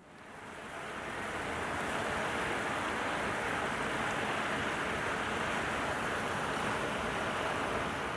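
A steady rushing noise that swells up over the first two seconds and then holds even, like wind or running water.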